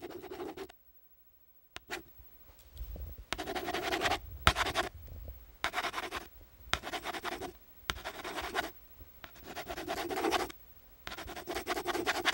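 Pen scratching on paper in repeated strokes, about one a second with short pauses between.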